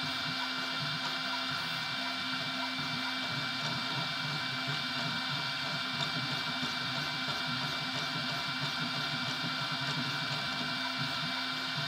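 FDM 3D printer running a print: a steady whine of several tones from its motors.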